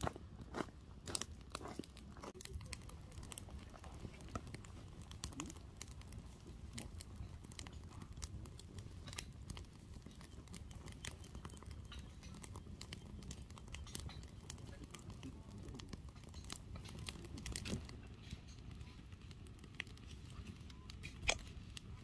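Wood fire crackling in a metal fire bowl: irregular sharp pops and snaps over a low rumble, with one louder snap near the end.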